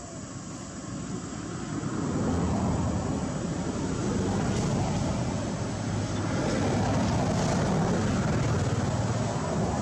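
Engine rumble, building up over the first two seconds and then holding loud and steady.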